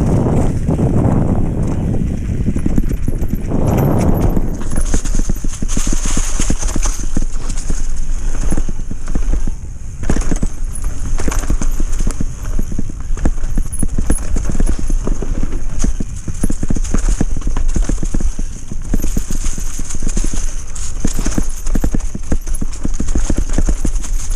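Mountain bike rattling at speed down a rough, leaf-covered dirt trail: a fast, continuous clatter of the bike jolting over roots and stones, with wind rumble on the microphone.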